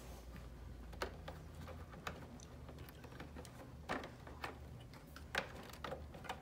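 Light, scattered clicks and taps, about six of them, from hands tucking a wet towel and moving tubing and wiring at the back of a refrigerator, over a faint low hum.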